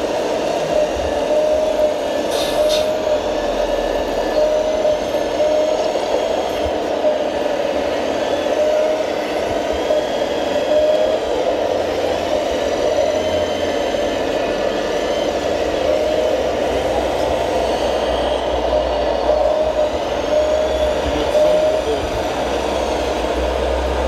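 Radio-controlled model hydraulic excavator and dump truck running: a steady motor and hydraulic-pump whine, its pitch repeatedly rising and falling as the machines work.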